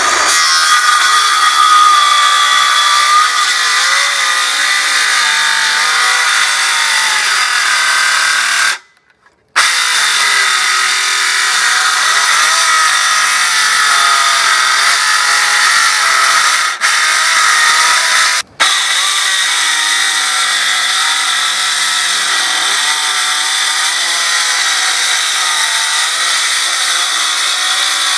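Cordless circular saw running and cutting through an oak board, its motor whine wavering in pitch as the blade is loaded. The sound breaks off for about a second around nine seconds in and dips briefly twice later.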